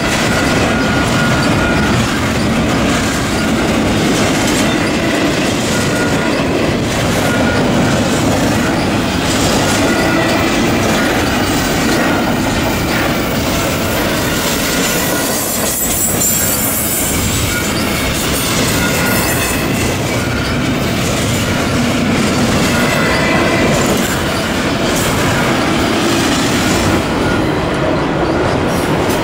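Freight train's double-stack intermodal well cars and autorack cars rolling steadily past: a continuous rumble of steel wheels on the rails, with short high wheel squeals coming and going.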